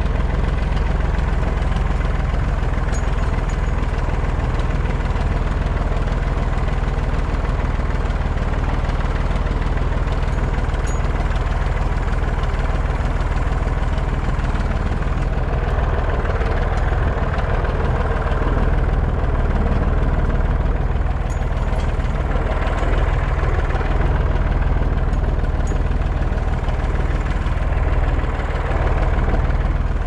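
Farm tractor engine running steadily as the tractor drives along, heard close up from on board.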